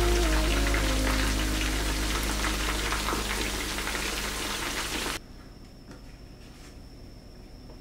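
Chicken karaage deep-frying in hot oil in a wok: a dense, steady sizzle as the pieces are lifted out. It cuts off suddenly about five seconds in, leaving a much quieter room.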